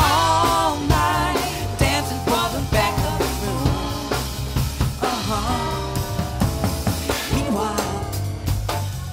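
Live band music: a drum kit keeps a steady beat under a wavering melody line, with cello and guitar playing an instrumental passage between sung verses.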